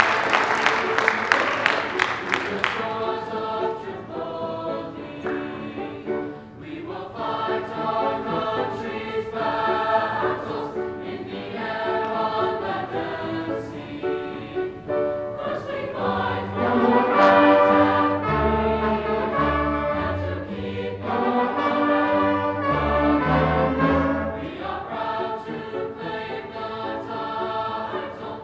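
Applause for the first two seconds or so, then a school choir singing with band accompaniment; deep low notes join in about halfway through.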